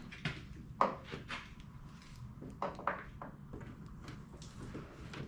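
Scattered light clicks and knocks of parts being handled during reassembly of the vehicle's front end, the sharpest about a second in and a quick cluster near the middle.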